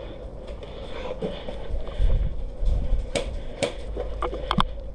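A few sharp clicks and knocks, two of them close together near the end, over a low rumble on the microphone.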